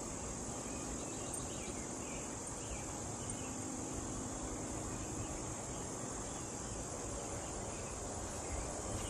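Steady, high-pitched chorus of insects droning evenly.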